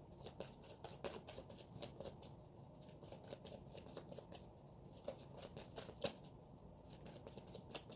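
Tarot deck being shuffled by hand: a faint, rapid, uneven run of small clicks as the cards slide and tap against each other.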